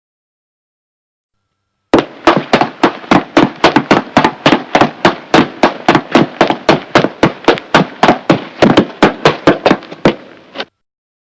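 Fast footsteps, sharp steps at an even pace of about four a second, starting about two seconds in and stopping near the end.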